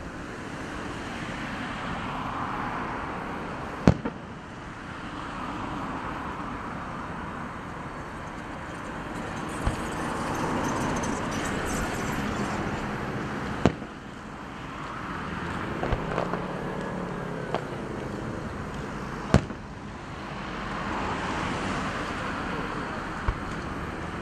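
Aerial fireworks shells bursting: about six sharp bangs a few seconds apart, over a rushing noise that swells and fades between them.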